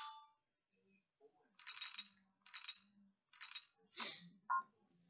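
Online poker game sound effects: a short chime at the start, then three short clattering bursts like poker chips clinking, about a second apart, while the final board card is dealt in an all-in runout.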